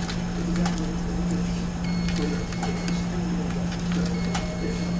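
Quarters being fed one after another into the coin slot of a Maytag commercial washer: a string of sharp metallic clicks over a steady low hum. Two thin, high beeps, each about a second long, come about two seconds in and again near the end.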